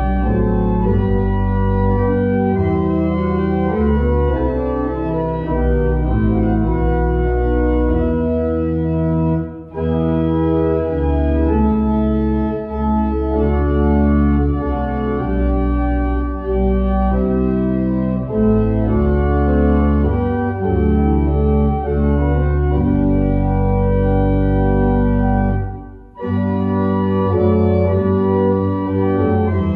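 Pipe organ playing slow, sustained chords over a pedal bass line, the harmony changing about once a second. The sound breaks off briefly twice, about ten seconds in and again near the end, at phrase ends.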